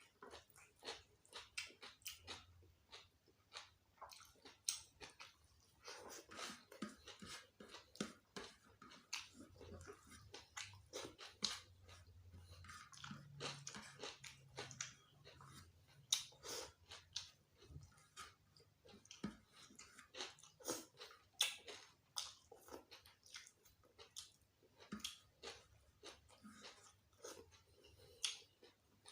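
Close-miked chewing and mouth sounds of someone eating gulai kikil with raw vegetables: a quiet, irregular run of wet clicks and crisp crunches.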